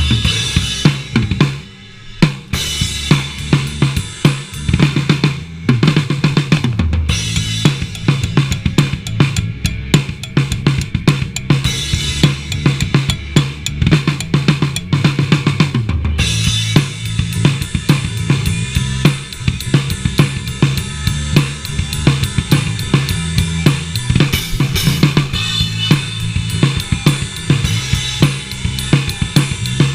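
Live band playing an instrumental rock jam, with a drum kit (kick, snare and cymbals) to the fore over a stepping bass line, picked up by a chest-mounted GoPro's microphone. The band drops out briefly about two seconds in, then comes back in.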